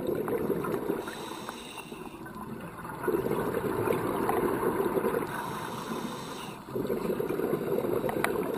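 Scuba diver's breathing heard underwater: exhaled bubbles gurgling out of the regulator in three bursts of about two seconds each, with a quieter hiss between breaths.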